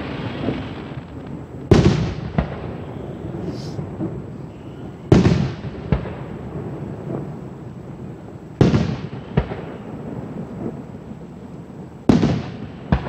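Aerial fireworks shells bursting, heard from about a quarter mile off. There are four loud booms, roughly one every three and a half seconds, each followed by a long echoing tail and a smaller pop. A second boom comes close after the last one.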